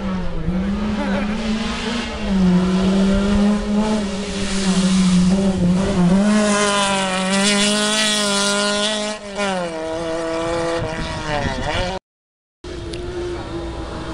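Rally car engine held at high revs under full throttle as the car passes, its pitch dipping briefly at gear changes and falling away as it lifts off near the end. The sound cuts out for a moment about 12 s in, then another car's engine is heard approaching at a steady pitch.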